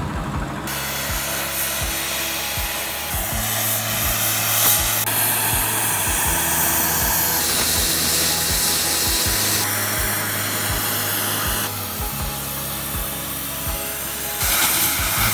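Hiss of an oxy-fuel cutting torch cutting through the steel bottom plate of a loader bucket, under background music with a steady beat. The hiss changes level abruptly several times.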